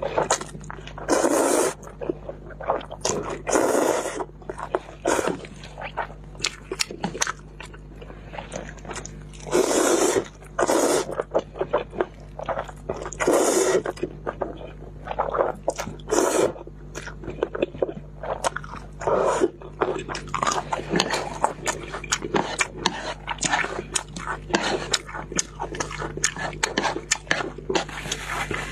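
Close-miked mouth sounds of eating instant noodles: several loud, long slurps as strands of noodles are sucked in, with wet chewing and lip smacking between them that grows busier in the second half.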